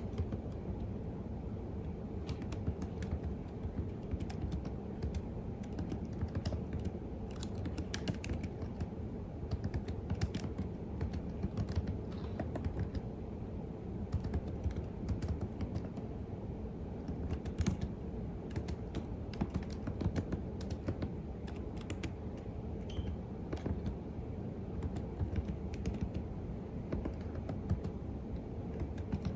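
Computer keyboard typing: a steady run of irregular key clicks, over a constant low background hum.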